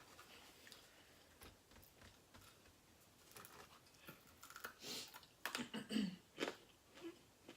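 Eating sounds close to the microphone: chewing and biting into french fries. They are faint at first, with a run of louder, sharper mouth sounds and crunches between about four and a half and six and a half seconds in.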